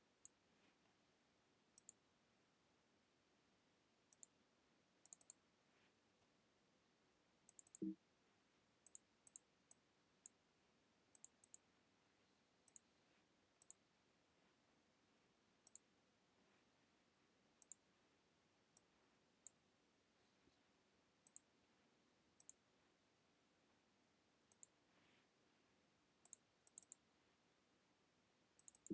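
Computer mouse clicking, irregular single and quick double clicks every second or so against near silence, with one soft thump about eight seconds in.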